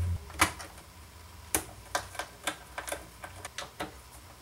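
Irregular sharp clicks and light taps of a screwdriver and hands working on the metal case and screws of a Quantum SCSI hard drive, about nine in all, the loudest about half a second in. A low hum cuts off just after the start.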